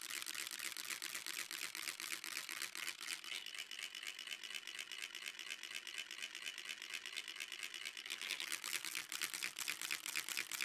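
Dense, rapid crackling clicks, mostly high in pitch, with a faint steady high tone through the middle; the clicking grows a little louder and sharper near the end.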